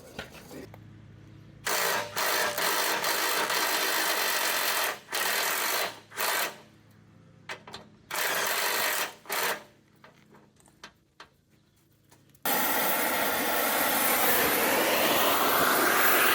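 A power tool run in several short bursts, then from about twelve seconds in a louder, continuous hissing whir whose pitch slowly bends.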